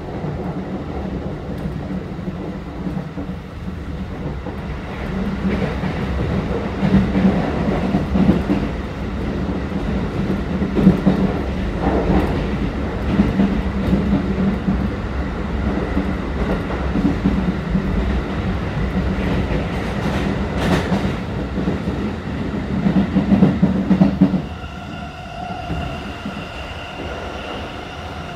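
Keikyu 1000-series electric train heard from inside the passenger car at speed: a steady running rumble with wheels clacking over the rail, louder while the side window is dark as in a tunnel. Near the end the rumble drops and a steady whine with several pitches comes through.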